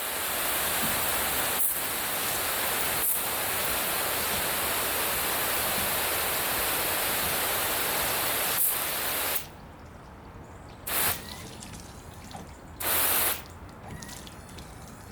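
Water spraying onto a car windshield: a steady hiss for about nine seconds that cuts off suddenly, followed by two short bursts of spray.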